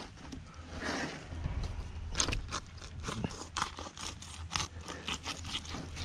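Knife cutting through a black drum, a quick run of short crunching scrapes that grows busier about two seconds in.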